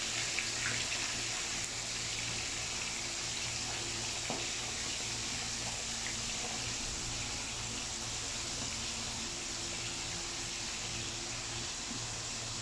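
Battered trevally frying in a pan of hot oil over low heat: a steady sizzle of bubbling oil, with a few light spatula clicks against the pan near the start.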